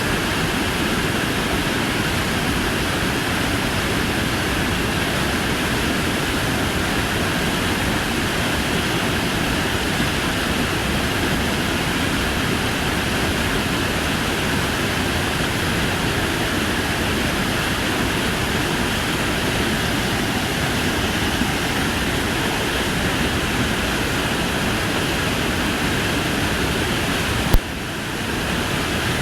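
Waterfall rushing, a steady, even roar of falling water. Near the end there is one sharp click, after which the rushing is briefly a little quieter.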